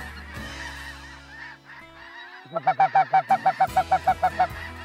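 Snow geese honking. After a quieter couple of seconds, a fast, regular run of loud honks, about five a second, starts about halfway in.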